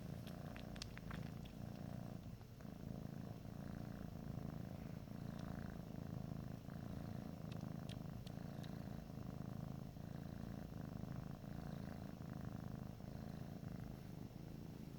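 Domestic cat purring steadily, with a few faint clicks about a second in and again around eight seconds in.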